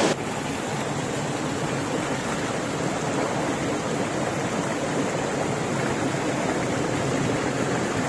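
Waterfall: falling water rushing with a steady, even noise.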